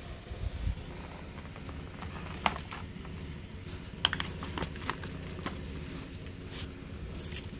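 Plastic retail packaging of a bike stem being handled: crinkling with scattered sharp taps and clicks, over a low steady hum.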